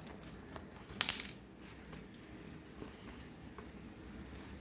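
Small metal chain strap of a sling bag clinking as it is handled, with a brief burst of rattling about a second in and a few light clicks after.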